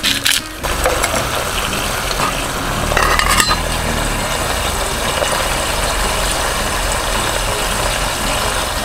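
Olive oil sizzling steadily in an aluminium mess tin over a gas camping stove, with a low rumble under it. It starts with a short rasping rhythm, the seasoning being ground in, and about three seconds in the metal lid is set on the tin with a brief clatter.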